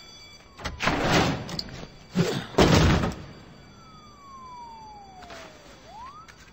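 Two loud door crashes about a second and a half apart, a door being banged or forced open. After them a thin tone slides slowly down and swoops back up near the end.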